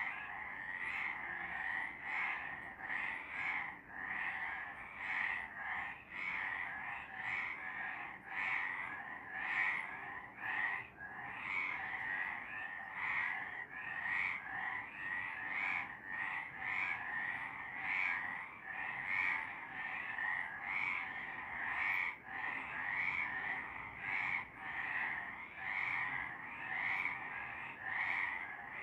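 Several frogs calling at night, a continuous chorus of repeated croaks, about two a second, overlapping without pause.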